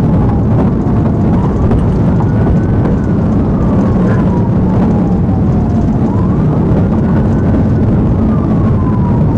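Police car siren in a slow rising and falling wail, over the loud steady rumble of engine, tyre and wind noise at highway speed, heard from inside the cruiser.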